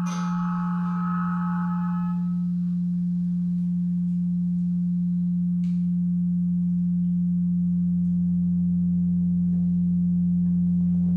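Steady low electronic drone tone, with a quieter hum beneath it, played through loudspeakers. Held muted trumpet tones fade out about two seconds in, and a short knock sounds near the middle.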